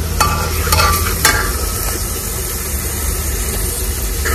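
Steel ladle stirring tomatoes and onions frying in oil in an aluminium pressure cooker, with a few sharp clinks of the ladle against the pot in the first second or so, over a steady sizzle and a low hum.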